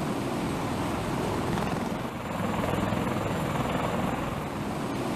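CH-53 heavy-lift helicopter running, its rotor and turbine engines making a dense, steady rotor chop that grows a little louder in the middle.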